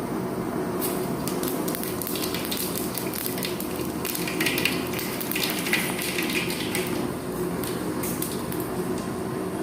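Food frying in hot oil in a pan, with a steady sizzle and many small crackles and pops starting about a second in.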